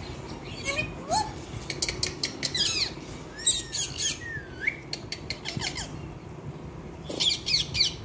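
Indian ringneck parakeets calling: clusters of rapid, high-pitched squawks and chirps, with a few short rising whistles and one swooping whistle.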